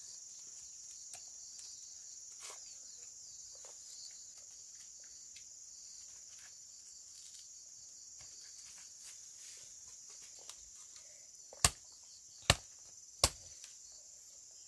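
Crickets chirring steadily, with faint rustling of leaves. Near the end, three sharp chops about a second apart as a machete strikes into the stalk of a banana bunch.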